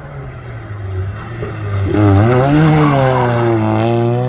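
Historic rally car's engine coming up at speed and passing close by, growing much louder about two seconds in. The engine note climbs, dips briefly, then rises steadily again as it accelerates on.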